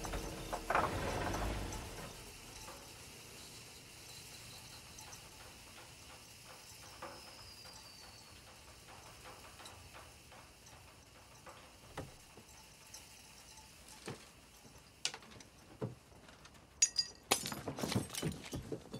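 Aftermath of a car collision. The rumble and crunch of the impact die away over the first two seconds, then a steady hiss comes from the wrecked car, broken by scattered small clicks and creaks. Near the end there is a cluster of knocks and scrapes from the damaged car's body and door.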